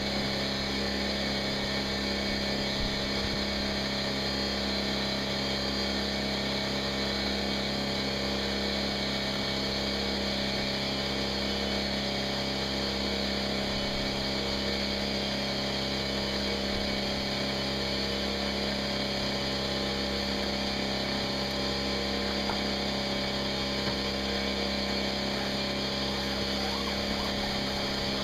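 Steady drone of a running motor at one constant pitch, with no tool cutting or striking.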